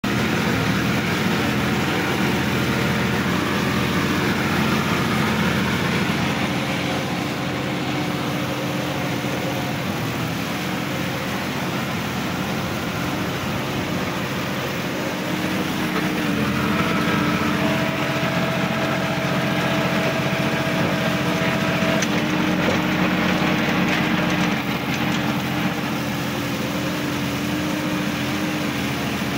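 Sonalika DI-50 RX tractor's diesel engine running steadily under load while puddling a flooded, muddy paddy field, heard from the driver's seat. A faint steady whine joins for a few seconds midway.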